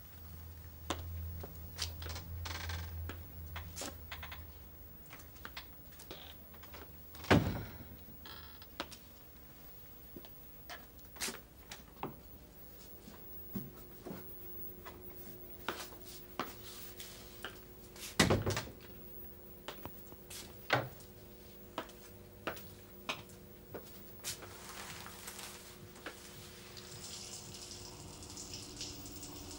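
Indoor door sounds: two loud thuds about seven and eighteen seconds in, among scattered light clicks and knocks. Near the end a steady hiss of running water from a tap begins.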